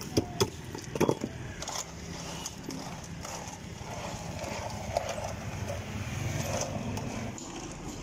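Chunks of ice knocking and clattering as they are broken off a block and packed into the wooden tub around the metal kulfi mould: several sharp knocks in the first two seconds. After that a low steady rumble.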